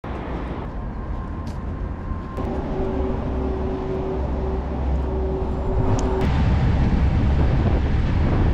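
Low, steady engine rumble with wind on the microphone. A faint steady tone holds for a few seconds in the middle, and the wind noise grows louder for the last couple of seconds.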